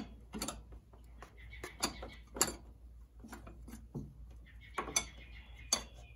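Metal parts of a bolt-on shift lever and bracket clicking and knocking as they are handled and fitted against an ATV's frame: a scatter of short, sharp clicks and knocks, about a handful in six seconds.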